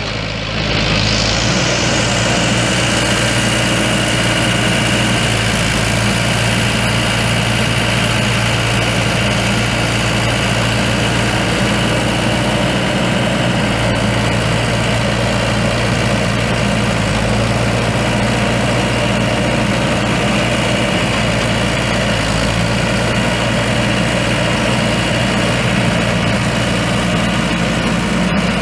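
Turbo diesel engine idling steadily, just after starting, with a steady high whine over the low idle.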